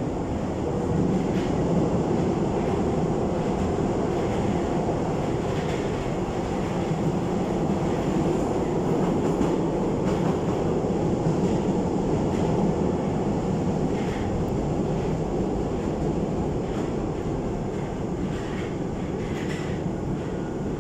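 Paris Métro MF 67 steel-wheeled train running, heard from inside the car: a loud, steady rumble of wheels on rails with a few faint clicks.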